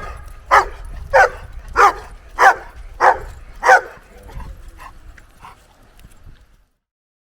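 A dog barking in a steady rhythm, about one and a half barks a second: seven loud barks, then a few fainter ones, before the sound cuts off to silence about two-thirds of the way through.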